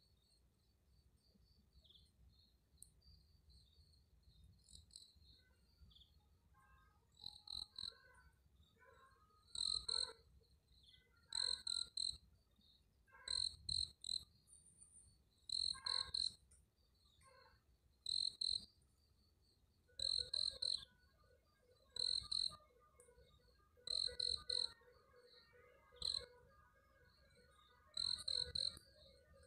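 Crickets chirping: short high chirps repeating regularly about every two seconds, over fainter continuous chirping. About two-thirds of the way in, a lower pulsing chorus joins in.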